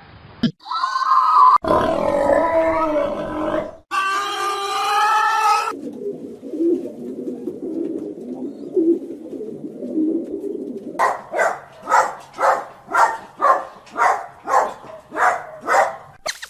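A run of different animal calls cut one after another: a few loud pitched calls, then a low rumbling stretch, then a call repeated in a steady rhythm about twice a second.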